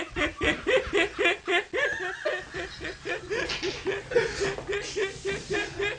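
Hearty, continuous laughter in quick pulses of about five a second, carried over a Skype video call.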